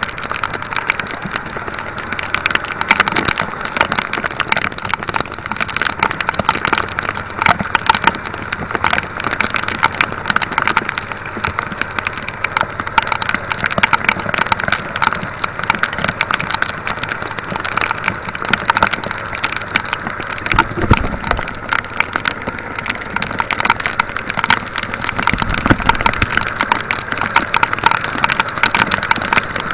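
Heavy rain pouring onto the sea and a small outrigger boat: a dense, steady hiss of drops with many sharp close-by patters.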